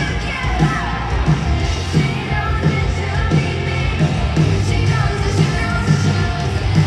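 Pop music with a singing voice over a steady drum beat, about one and a half beats a second.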